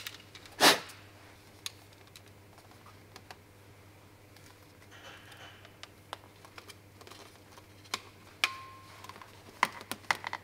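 Scattered clicks and light knocks of hands working small parts and tools, typical of fitting a fuel hose connection, with one sharper knock about a second in and a brief squeak near the end, over a faint steady hum.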